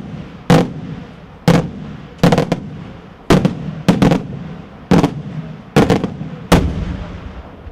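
Daytime fireworks shells bursting overhead in a rapid series of about ten loud bangs, roughly one a second with some in close pairs, each trailing off in a rolling echo.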